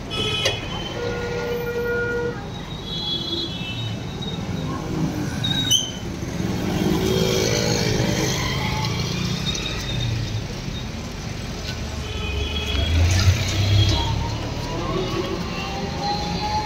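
Street traffic running steadily, with vehicle horns sounding several short times, about half a second in, around three seconds and again near twelve seconds. A heavier low rumble swells briefly near the end, as a vehicle passes close.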